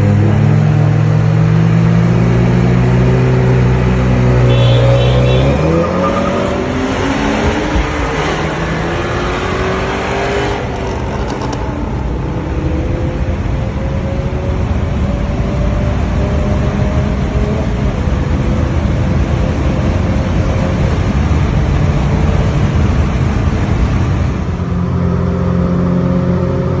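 A 2020 Honda Civic Si's turbocharged 1.5-litre four-cylinder, with a catless downpipe and aftermarket cat-back exhaust, running steadily at first. About five seconds in it accelerates, its pitch rising quickly, then keeps climbing slowly for a long stretch before dropping back to a steady low drone near the end.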